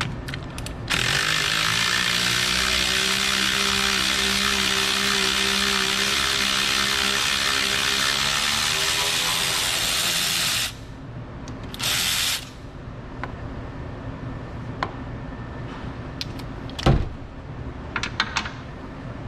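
Cordless power tool running steadily for about ten seconds as it spins a bolt out of an engine hoist mount, then a second short run of about a second. A few sharp clicks follow near the end.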